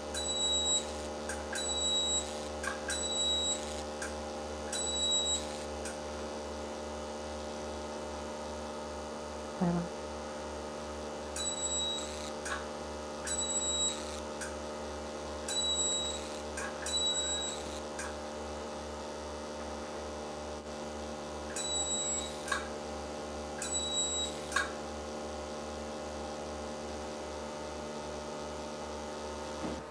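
CO2 fractional laser machine humming steadily, with short high beeps, each with a click, as the handpiece fires its pulses. The beeps come in three runs of three to five, separated by pauses of several seconds.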